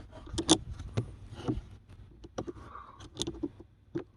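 Scattered sharp plastic clicks and knocks, about half a dozen over four seconds, as a wiring connector behind a car's glove compartment is worked loose by hand.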